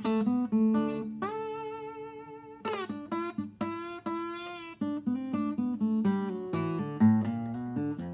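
Old handmade acoustic guitar played with a slide, an instrumental break between verses: a run of plucked melody notes that waver and glide in pitch over steady low bass notes.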